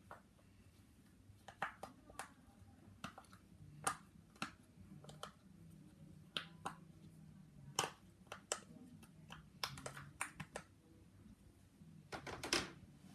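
Plastic fidget toys being clicked and tapped close up for ASMR: irregular sharp clicks a second or so apart, with a quick louder flurry near the end.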